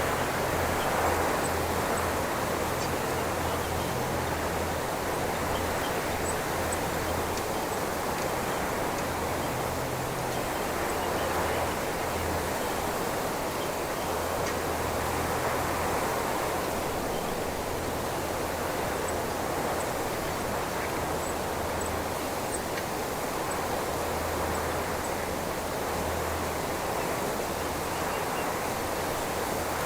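Wind rushing through a cypress bush, swelling and easing in slow gusts, with a low rumble now and then from wind buffeting the microphone. Faint high bird chirps come through here and there.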